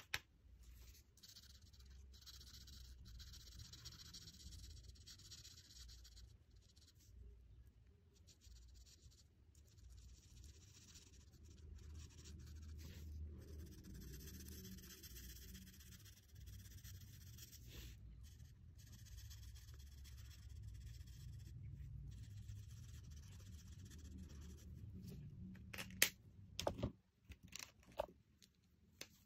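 Faint scratching of an art marker's tip stroking over a paper colouring page, in stretches. A few sharp clicks near the end.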